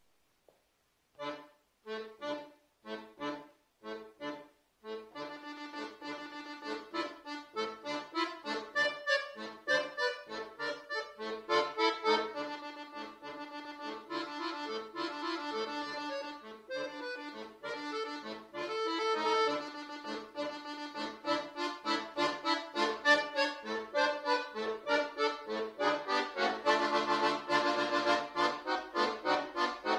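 Button accordion played solo, starting a new piece after a pause: about six short, detached chords a little over a second in, then fast, continuous playing that grows denser and louder near the end.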